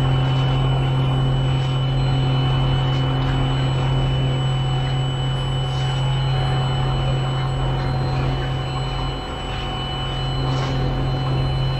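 DEWALT Powershift battery-powered concrete power screed running, a steady vibrating hum as it is pulled across wet concrete to level the slab, easing off briefly about nine seconds in.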